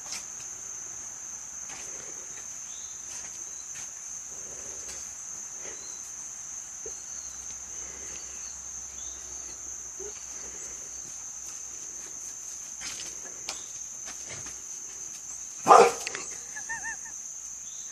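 A dog barks once, sharply, near the end, over a steady high-pitched insect trill that runs throughout. A few faint small calls follow the bark.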